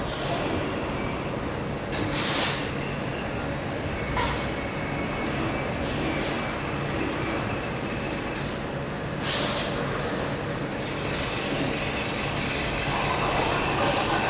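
Laser welding robot cell running with a steady mechanical hum as the robot arm moves the welding head. Two short bursts of hiss come about seven seconds apart, and a brief high beep sounds about four seconds in. Over the last few seconds a louder, rougher hiss builds as welding begins.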